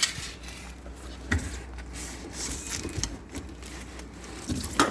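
Handling noise from a moped wheel rim and brake drum being moved about: a click at the start, a sharp knock about a second in, and scattered smaller clicks and rustling.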